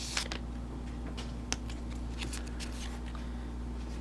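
Soft rustles and scattered light clicks of Pokémon trading cards and their opened foil booster pack being handled, over a steady low hum.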